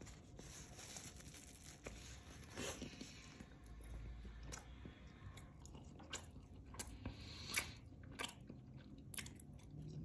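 A person biting into and chewing a chocolate-kreme-filled, caramel-glazed doughnut. It is faint, with scattered sharp mouth clicks that come more often in the second half.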